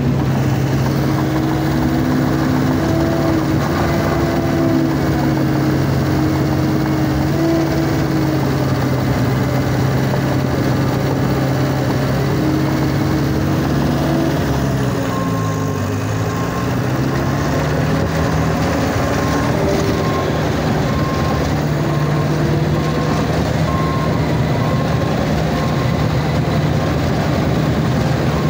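Diesel engine of a John Deere 650K LGP crawler dozer running steadily; about halfway through its pitch dips and comes back up under load. From then on a back-up alarm beeps about once a second.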